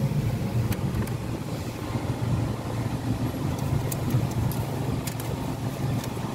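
Car engine idling, a steady low rumble heard from inside the cabin with the driver's window open, with a few faint clicks.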